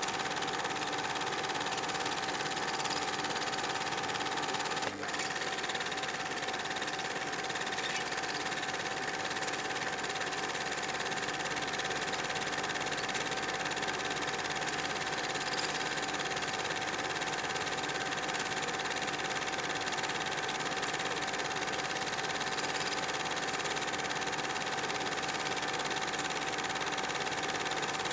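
Film projector running: a steady mechanical whir with a constant hum and hiss, with one brief click about five seconds in.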